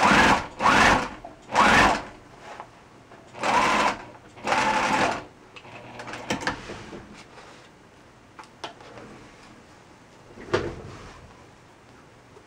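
Electric sewing machine stitching a lace gown's waist seam in five short bursts over the first five seconds, stopping and starting as the fabric is guided. A few quieter clicks and fabric handling follow, with a sharper click about ten and a half seconds in.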